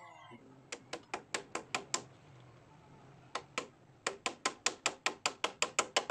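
Hammer driving a nail into a wooden plank: a quick run of about seven blows, a pause, two more, then a steady run of about ten blows at roughly five a second.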